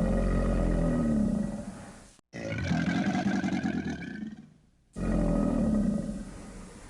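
Crocodile roars played as a sound effect: a deep, pitched roar that cuts off abruptly about two seconds in, a higher, raspier call after it, then another deep roar from about five seconds in that fades out.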